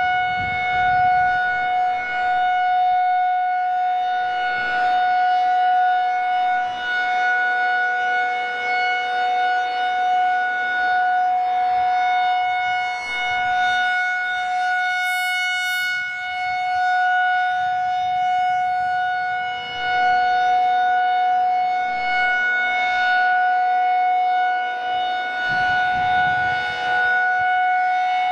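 Federal Signal 2001-SRN rotating electromechanical warning siren at full speed, holding one steady high tone. Its loudness swells and fades as the rotating head sweeps past, with wind rumbling on the microphone now and then.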